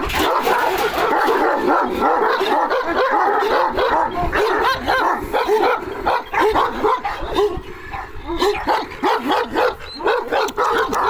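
Kangal shepherd dogs whining and yipping: a rapid, unbroken string of short high-pitched cries.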